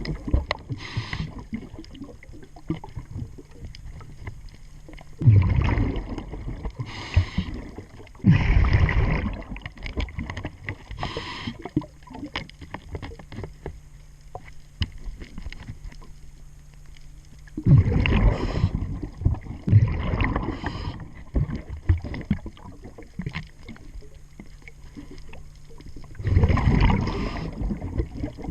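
Diver breathing through a regulator underwater: loud bubbling exhalations every few seconds, with fainter hissing inhalations between them.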